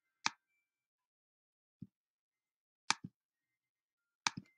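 A few sharp computer clicks: a single click about a quarter second in, a faint low tap near two seconds, a paired click near three seconds and another pair near the end, as a file is selected and opened.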